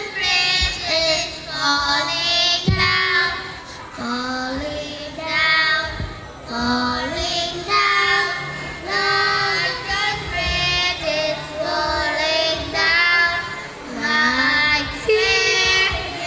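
A child singing solo into a microphone, in phrases of a few seconds with short breaks between.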